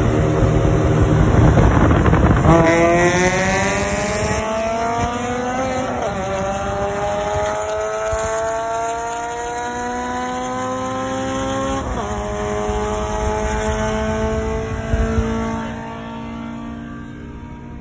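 Car engine at full throttle, rising steadily in pitch through each gear, with quick upshifts about six and twelve seconds in, then fading near the end as the acceleration ends or the car draws away.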